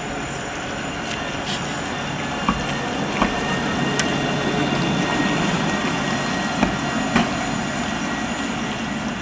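Articulated street tram running slowly past on wet rails: a steady rumble that swells a little mid-pass, with a few sharp clicks from the running gear.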